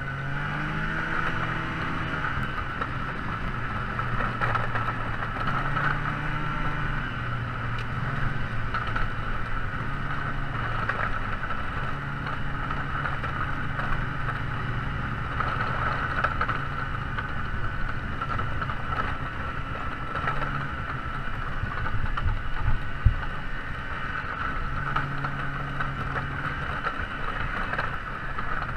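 An engine running steadily, its pitch stepping up and down a few times over a constant whine and noise. A single sharp knock comes about three-quarters of the way through.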